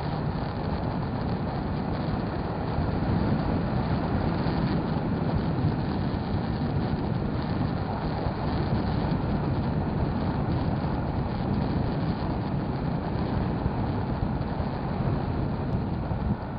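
Motorcycle riding along, its engine and road noise running steadily, a little louder from about three seconds in.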